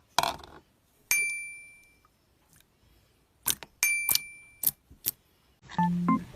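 Two bright ding chimes, about two and a half seconds apart, each ringing out for under a second, among several sharp clicks; a keyboard tune begins near the end.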